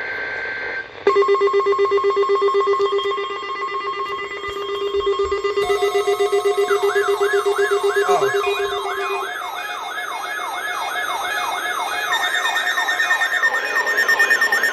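The tail of a SAME alert-header data burst, then several weather alert radios sounding their alarms together. First comes a steady, rapidly pulsing beep. About five and a half seconds in, a warbling siren-like alarm joins it, sweeping up and down about two and a half times a second.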